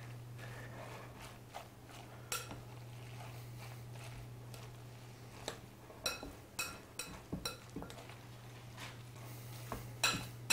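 Hands mixing chopped raw fish through grated vegetables in a glass mixing bowl, with a few light clinks against the glass, bunched about six to seven seconds in. A steady low hum runs underneath.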